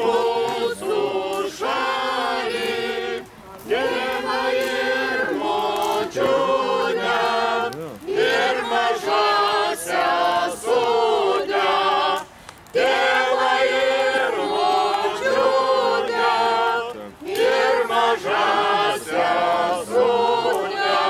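A small mixed group of folk singers singing a Lithuanian folk song together, unaccompanied, in long held phrases with short pauses for breath.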